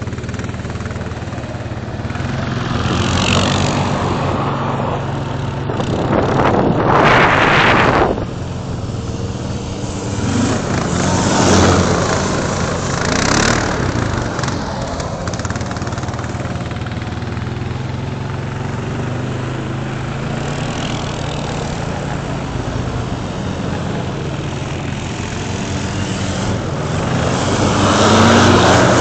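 ATV engine revving up and down as the quad spins and drifts on snow-covered ice, swelling louder several times, with rushing noise as it slides. The revs climb near the end as it comes close.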